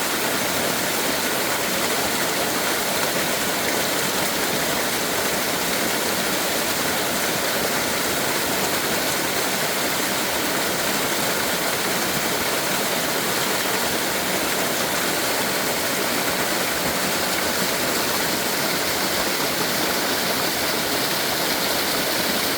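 Natural waterfall in a mountain stream, water pouring and splashing in a steady, loud rush.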